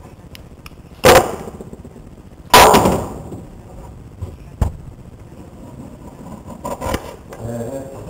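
Two loud, sharp knocks on a wooden cutting board about a second and a half apart, the second ringing on briefly, as a kitchen knife and cut avocado are handled on it; a few lighter taps follow.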